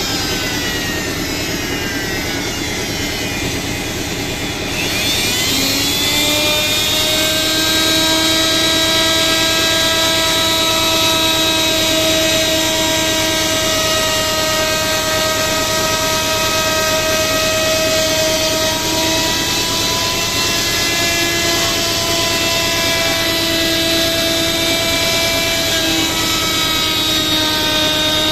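Electric power tool motor running with a steady whine over a noisy rush. Its pitch sags over the first few seconds as if slowing under load, then climbs back up and holds nearly steady.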